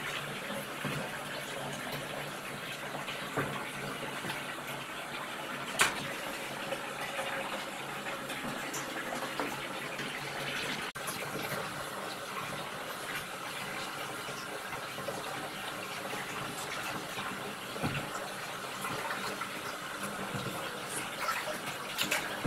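Water running into a bathtub from the tap: a steady gush, with a sharp knock about six seconds in and a few smaller knocks later.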